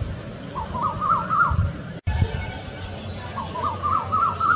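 A cuckoo giving its second call type: two runs of about five quick, hooked whistled notes, each run climbing in pitch, the second beginning a little past three seconds in. Faint high chirps of other small birds sit behind it, and the sound cuts out for an instant near the middle.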